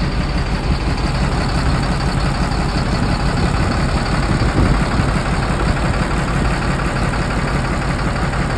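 Caterpillar C7 7.2-litre diesel of a 2007 Freightliner M2 dump truck idling steadily.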